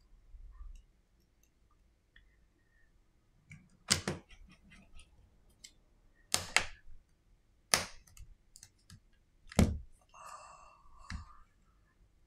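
Sharp clicks and knocks of a precision screwdriver and smartphone parts being handled and set down on a repair mat, five louder knocks among lighter ticks, then a brief scraping rustle near the end.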